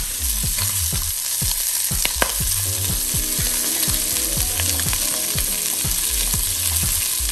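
Bone-in, skin-on chicken thighs sizzling steadily in hot oil in a pot, searing skin-side down to crisp the skin, with small crackles and one sharper pop about two seconds in.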